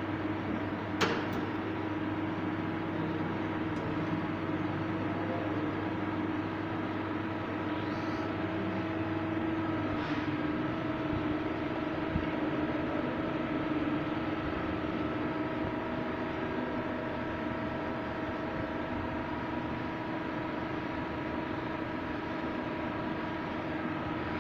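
Star RNC-16 CNC automatic lathe running, a steady machine hum with several held tones. There is a sharp click about a second in, and a low hum drops out about ten seconds in.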